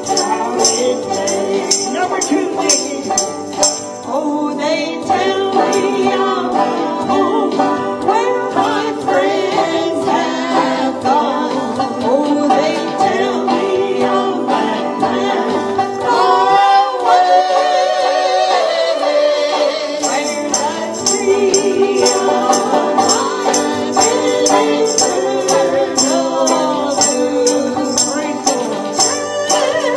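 Live banjo playing with a tambourine shaken in time, its jingles clear in the first few seconds and again from about twenty seconds in, with a voice singing along.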